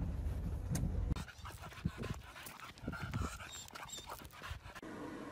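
A low rumble of a moving car with a window down for about the first second, then a dog panting in short uneven breaths.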